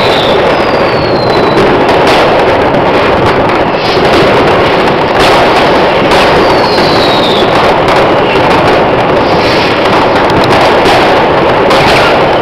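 Fireworks going off without pause: a dense, loud crackle of bangs and firecrackers, with whistling rockets whose whistle falls in pitch a few times.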